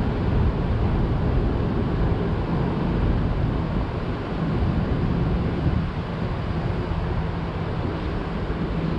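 Steady rumble and hiss of wind on the microphone, under a low, steady hum of traffic on the highway bridge overhead.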